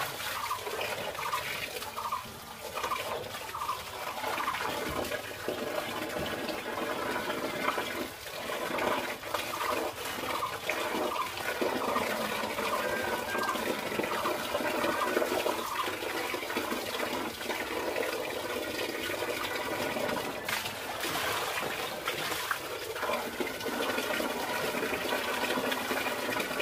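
Tap water pouring steadily from a standpipe into a metal basin, with splashing and sloshing as a wet sari is washed and lifted in it.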